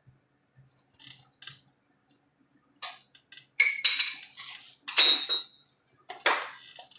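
Sheet metal and hand tools clanking and scraping: a string of sharp metallic knocks, several with a short high ring, the loudest about four and five seconds in.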